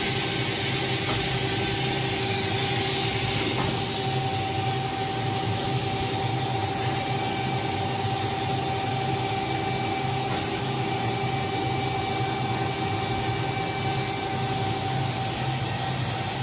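OKK HM-6300S CNC horizontal machining center running a program: a steady machine hum and hiss with a constant whine, easing a little about four seconds in.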